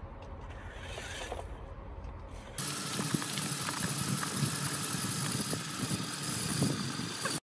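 A radio-controlled toy Cybertruck driving on asphalt: its small electric motor and gearing whine steadily, with small ticks from the tyres rolling over grit. The sound comes in suddenly about two and a half seconds in, after a low outdoor rumble.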